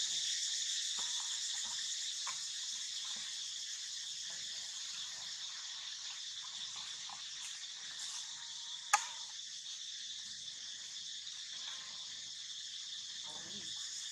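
Steady high-pitched chorus of forest insects, with a few faint rustles and one sharp click about nine seconds in.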